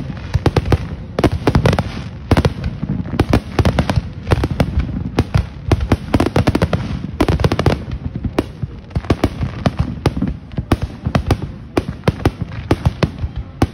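Fireworks display in a dense barrage: a rapid run of overlapping bangs from aerial shells bursting, several a second, with crackling between them and a low rumble throughout.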